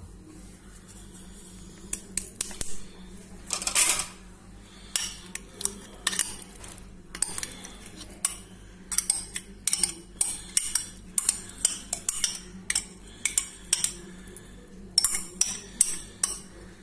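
Metal spoon clinking and scraping against the dishes as sticky candied orange peel is spooned into a glass bowl of dried fruit: many quick, irregular clicks starting about two seconds in.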